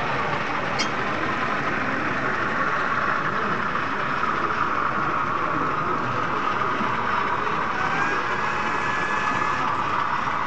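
Steady hubbub of a busy exhibition hall: indistinct visitor chatter over constant background noise, with a single click about a second in and a faint gliding tone near the end.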